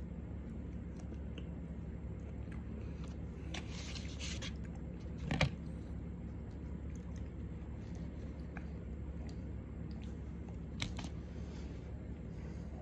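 A person chewing a mouthful of burger, with scattered small clicks and a sharp knock about five seconds in, over a steady low hum.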